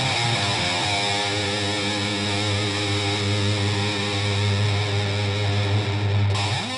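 Background music: a distorted electric guitar chord held and left ringing, cut off shortly before the end.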